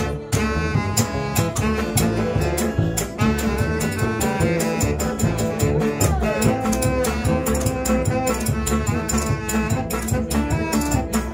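Live acoustic band playing an instrumental passage: acoustic guitars strumming a steady rhythm under a saxophone playing held notes, with one sliding note about six seconds in.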